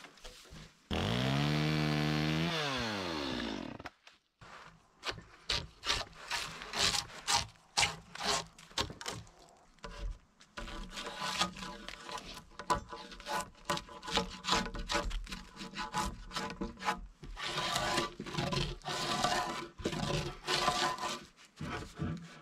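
A drawknife peeling bark off a wooden pole in many quick scraping strokes. About a second in, a loud motor-like drone lasting under three seconds dips and then rises in pitch.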